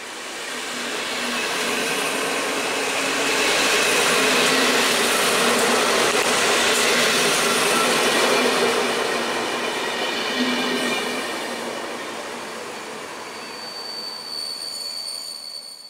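Passenger coaches of an Intercity train rolling over the rails as an EP07 electric locomotive pulls them out of the station. The wheel noise swells, peaks in the middle and then fades as the last coach goes by, with high steady squealing tones from the wheels.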